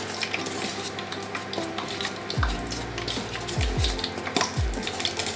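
A spoon stirring dry rice flour and wheat flour in a plastic bowl, with many quick scrapes and ticks. From about halfway in, low falling thuds come roughly once a second.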